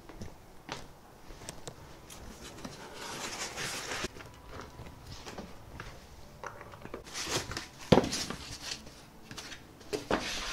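Packing foam and cardboard being handled and pulled out of a box: scattered clicks and two stretches of rustling and scraping, with one sharp knock about eight seconds in.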